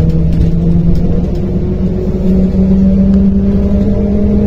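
Diesel engine of a MAZ-105 articulated city bus, heard from inside the passenger cabin while the bus is under way: a steady drone whose pitch climbs slightly. It eases off briefly about two seconds in, then picks up again at a slightly higher pitch.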